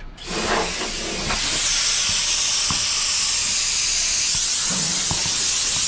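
Nitrogen pressure-test charge hissing out of a Hoshizaki ice maker's refrigeration circuit through the manifold gauge set, vented from just above 300 psi. It is a loud, steady hiss that starts abruptly.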